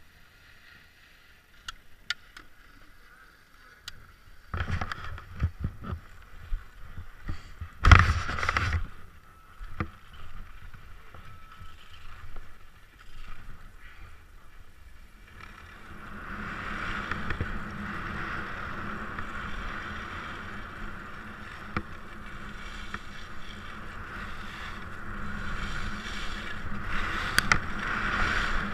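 Downhill skis on a groomed piste heard from an onboard camera. After a quiet start comes scattered knocking and clatter of skis and gear, the loudest knock about a third of the way in. From about halfway it turns into a steady hiss and scrape of skis on snow, with wind on the microphone, growing louder as speed builds.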